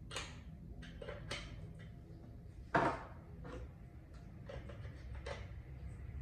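Plastic pressure-washer accessories being handled and fitted together: a series of sharp clicks and knocks, the loudest about three seconds in.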